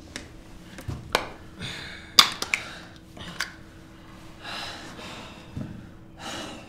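Plastic water bottles handled in the hands, giving sharp crackles and clicks, the loudest a little past two seconds in. Several breathy exhales come between them.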